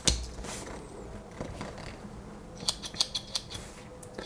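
Small spring-loaded scissors of a Victorinox Huntsman Swiss Army knife being worked open and shut. There is a sharp click at the start, then a quick run of about five crisp metallic clicks about three seconds in.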